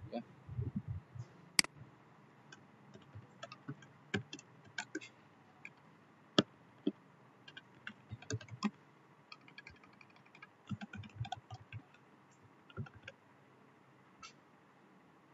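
Computer keyboard typing: irregular key clicks, some in quick runs, with a few soft low thumps.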